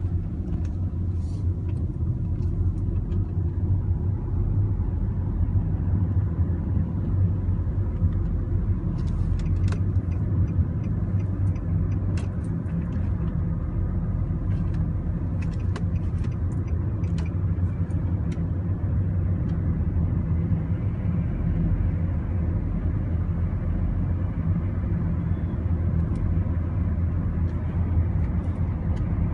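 Steady low rumble of a motor vehicle running, with a few faint clicks scattered over it.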